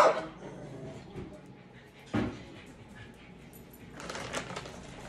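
Quiet room with brief handling noises: a single short dull thud about two seconds in, then a rustle and light clatter around four seconds in.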